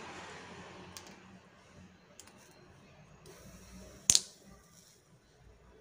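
Small handling sounds while a wire is soldered onto a cylindrical lithium battery cell with an electric soldering iron: a few faint clicks and one sharp clack about four seconds in. A low rumble, like a passing vehicle, fades out in the first second or so.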